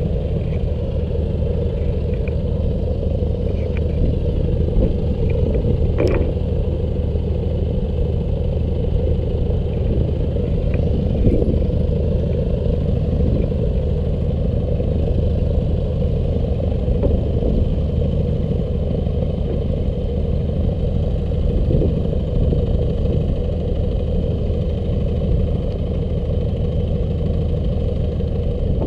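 Light aircraft's propeller engine idling with a steady, even drone, and one sharp knock about six seconds in.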